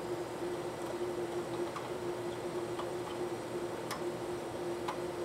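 Faint metallic ticks, about one a second, from a small screwdriver turning the retaining screws of an ion pump's electrical connector. They sit over a steady machine hum with one pitch.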